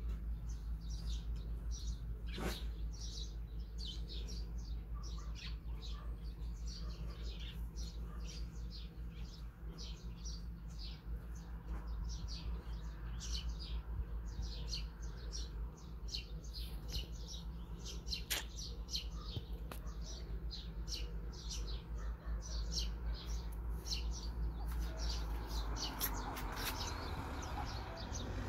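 Small birds chirping in quick, repeated short notes over a steady low rumble, with a broader rushing noise swelling near the end.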